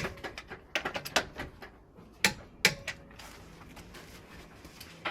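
A dozen or so sharp, irregular clicks and knocks of hand work on car parts, most in the first three seconds, then only a faint hiss.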